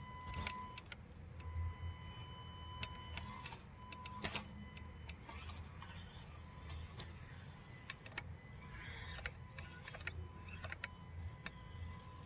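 Electric RC rock-crawler truck driving over sandstone rocks and gravel: a thin steady motor whine with scattered clicks and knocks as the tyres and chassis scrape over the stones.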